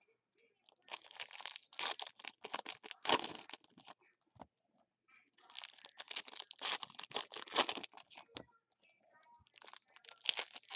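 Foil trading-card pack wrappers being torn open and crinkled by hand, in several long bursts of crackling with short pauses between.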